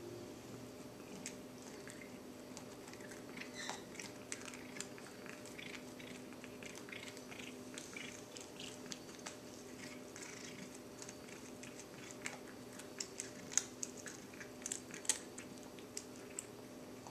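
A feral cat chewing and biting a small piece of food: a stream of soft wet clicks and smacks that comes in bursts, with the sharpest bites near the end.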